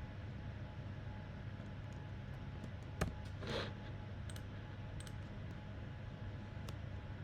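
Steady low hum of room noise with a few faint scattered clicks; one sharper click about three seconds in, followed by a brief rustle.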